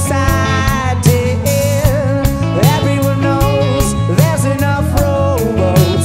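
Indie rock band playing live: a male lead vocal sung over electric guitar, electric bass and a Nord keyboard, with a steady beat.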